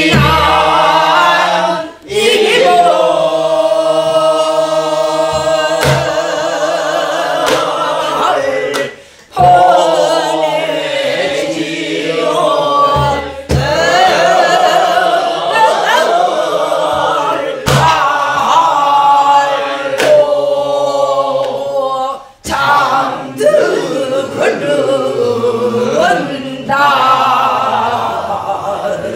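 A group of men and women singing a Korean Namdo folk song together in unison, in the strongly wavering, vibrato-laden southwestern folk style, with short breaks for breath. Low strokes on a buk barrel drum keep the beat every few seconds.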